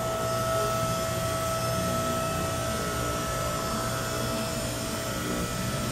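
Power unit of a Southworth scissor lift table running steadily as the table rises, a constant motor hum with a steady whine.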